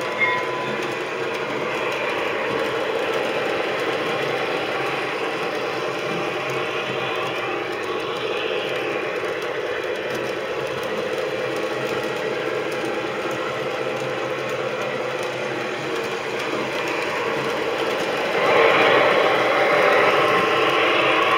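A Lionel O-gauge FT diesel passenger train running on three-rail tubular track: a steady rumble of its electric motors and metal wheels on the rails. It grows louder about 18 seconds in as the locomotive comes close.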